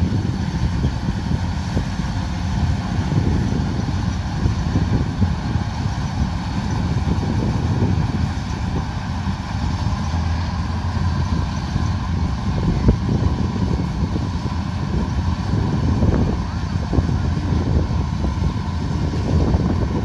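Kubota DC105X combine harvester running with a steady, low engine drone.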